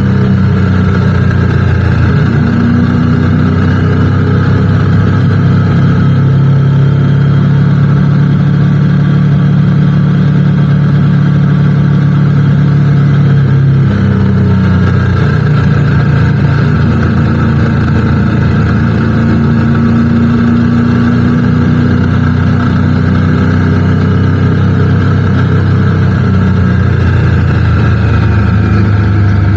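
Motorcycle engine running steadily under way; the engine note drops abruptly about halfway through, then climbs slowly again.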